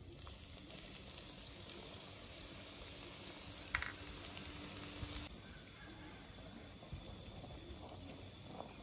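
Sliced shallots frying in hot rendered pork fat in a wok: a steady sizzle, louder for the first five seconds and then softer. A brief clink sounds near the middle.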